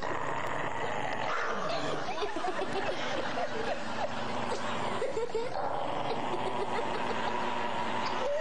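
People snickering and chuckling softly, in short wavering bursts.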